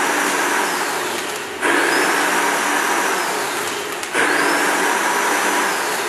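A row of six cold spark machines spraying together in repeated bursts, as a programmed spray-and-pause cycle: a loud rushing hiss with a whine that rises at each new burst, surging afresh about a second and a half in and again about four seconds in.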